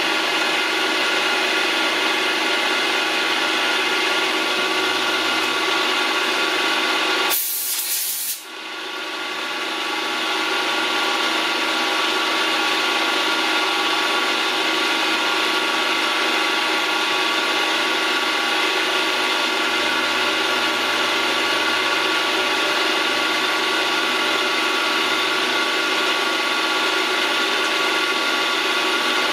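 Milling machine running steadily, a hum of several tones, as a cutter works a small screw blank held in a chuck. About seven seconds in there is a brief loud hiss, after which the sound dips and builds back up over a couple of seconds.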